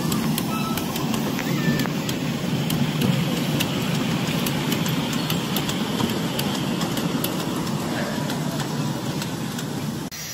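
A 7¼ in gauge miniature steam train, a small tank locomotive hauling a long string of goods wagons, running past with a steady rumble and a scatter of sharp clicks from the wheels and track. The sound drops off suddenly just before the end.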